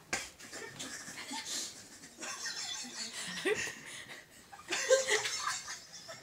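Soft, breathy laughter and giggling, in spells about two seconds in and again around five seconds.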